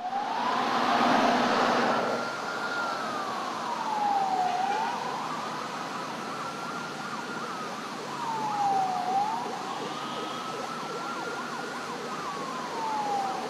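Police escort sirens wailing. One siren rises slowly, holds, then falls, repeating about every four seconds, while a second, faster siren sweeps rapidly underneath. A broad rushing noise is loudest in the first two seconds.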